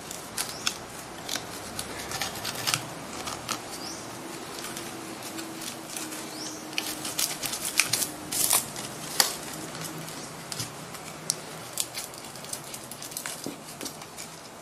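A kitchen knife cutting through a stiff plastic bleach-bottle mould wrapped around a cement vase, irregular clicks and crackles as the blade works the plastic loose.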